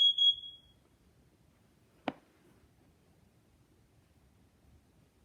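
First Alert smoke and carbon monoxide alarm's high-pitched beep ending under a second in, then a pause of several seconds with a single click about two seconds in; the long pause between beep groups fits the alarm's carbon-monoxide signal.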